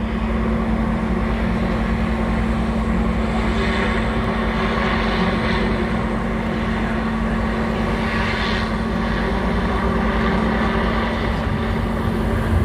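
Goodyear Zeppelin NT airship flying overhead, its propeller engines making a steady drone with one low held tone.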